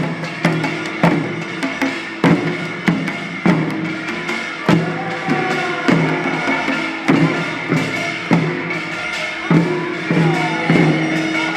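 Korean traditional field-song (deulsori) performance: singing voices over an even beat of drum strokes, a little under two a second.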